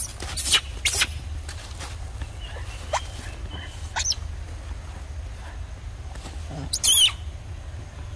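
Macaques squealing: three sharp, high-pitched shrieks in the first second, two quick rising squeaks around three and four seconds in, and a louder wavering squeal about seven seconds in.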